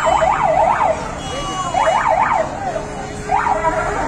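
Police siren yelping: fast up-and-down sweeps, about five a second, sounding in three short spurts with brief breaks between them, over the low noise of traffic.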